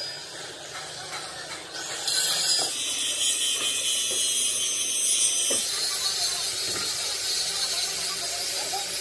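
Electric arc welding: a steady crackling hiss that jumps louder about two seconds in and changes character again near six seconds.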